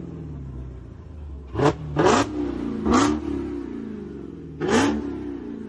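Dodge Challenger SRT Hellcat's supercharged 6.2-litre V8 revved while standing still: four sharp blips of the throttle, two close together about a second and a half in, one about three seconds in and one near the end, each rising in pitch and falling back to idle.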